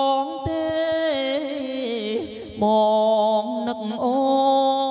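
A man singing into a microphone through a powered mixer with digital echo and reverb. He holds long notes with a wavering pitch, and in the middle a run of notes bends and falls before a held note comes back.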